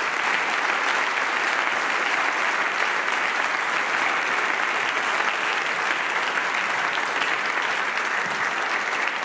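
Sustained applause from a large audience in a parliamentary chamber, steady and dense throughout.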